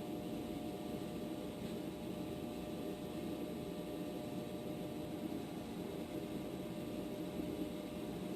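Steady low background hum and hiss with a few faint steady tones and no distinct events.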